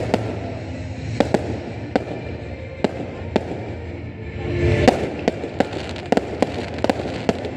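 Fireworks display: aerial shells bursting with a dozen or so sharp bangs at irregular intervals, coming faster in the second half, the loudest about five seconds in, over a steady low rumble.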